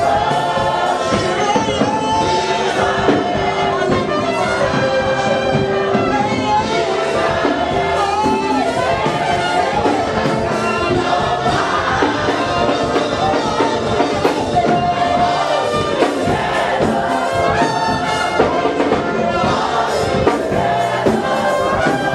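A congregation singing gospel praise together over loud band music, many voices at once, without a break.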